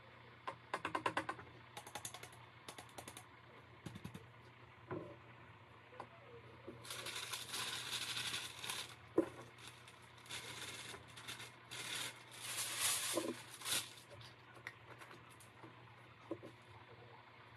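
Glitter jar shaken over a tumbler, a quick run of light rattling ticks, then a sheet of paper crinkling and rustling in two longer stretches as it is picked up, folded and handled, with a few small knocks of things set on the table.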